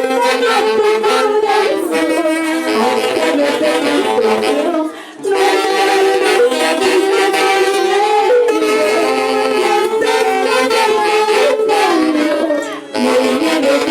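An orchestra playing a lively traditional melody, with a wind-instrument lead. The music briefly drops out about five seconds in and again near the end.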